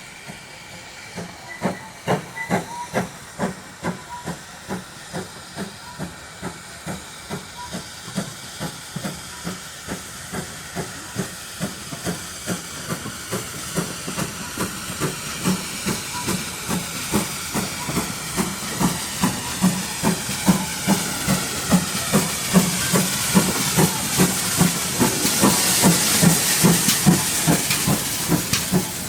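Steam locomotive working, exhaust beat chuffing at about two a second over a continuous hiss of steam, both growing louder toward the end.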